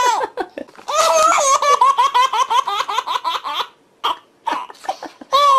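High-pitched laughter, a fast run of ha-ha-ha pulses from about a second in, breaking off briefly near the end before starting again.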